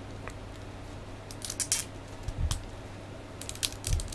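Small plastic Ultimate Gohan action figure being turned and posed in the hands: three clusters of quick, sharp plastic clicks as its joints are moved, with a couple of dull low bumps.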